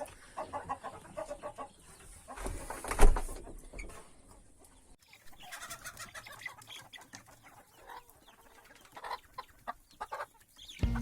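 Hens and chicks clucking in short, scattered calls, with a single loud thump about three seconds in.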